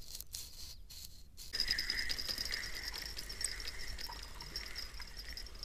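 Spinning reel on a feeder rod being cranked: a few handling clicks and rubs, then from about a second and a half in a steady whirring of the reel turning.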